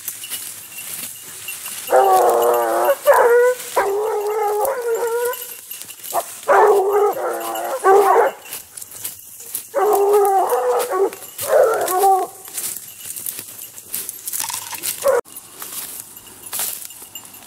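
A pack of blue bassets, scent hounds, baying in drawn-out bouts a second or two long, with short gaps between them and a couple of shorter cries near the end. They are giving tongue as they work a hare's scent line.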